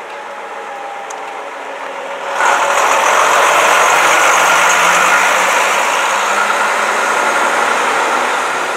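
Vintage coach driving past at close range, its engine running steadily. The engine gets sharply louder about two and a half seconds in as the coach passes close, then eases off slightly as it pulls away.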